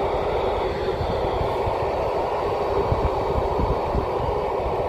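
Steady hiss of an FM ham radio receiver with the squelch open and no signal coming in, under low, uneven wind buffeting on the microphone.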